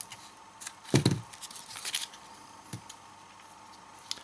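Side cutters snipping through the soldered plus and minus leads of an old cordless-drill battery pack: one sharp snip about a second in, then a few softer clicks and rustling as the cells are handled.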